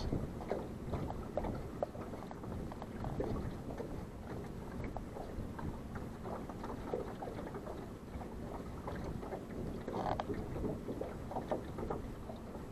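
Small waves lapping and slapping irregularly against the hull of an aluminium fishing boat, with a low wind rumble on the microphone.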